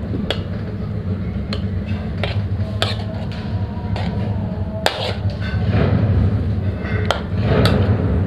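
A spoon knocking and clinking against a cooking pot, about eight irregular strokes, while chicken is stirred into a yogurt and spice marinade, over a steady low hum.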